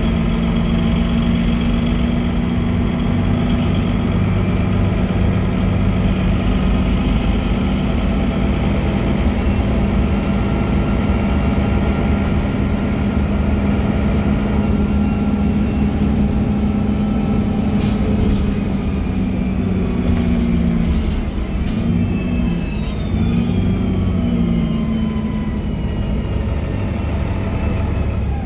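Interior sound of a MAN NG313 articulated bus under way: the MAN D2866 straight-six diesel engine and Voith automatic gearbox give a steady low drone that wavers and dips about three quarters of the way in. Thin high whines from the drivetrain rise and then slide down in pitch over the second half.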